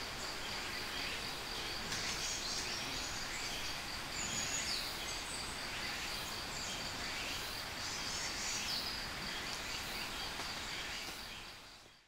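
Woodland ambience: an insect's steady high-pitched trill runs throughout, with a few short bird chirps and calls scattered over a soft background hiss.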